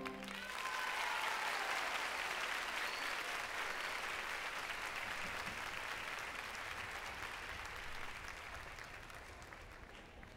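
Large theatre audience applauding, the clapping slowly dying away toward the end.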